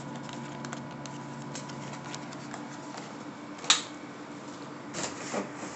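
Quiet handling noise from hands on an RC model airplane: a few light taps and ticks over a steady low hum, one sharp click a little past the middle, and rustling near the end.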